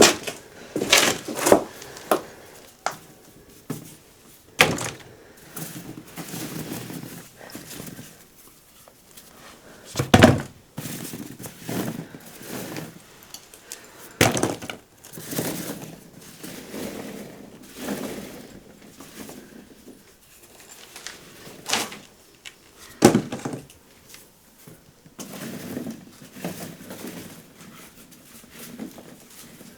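A series of sharp knocks and clunks, as of things being handled and set down, the loudest about ten seconds in, with softer rustling and scraping between.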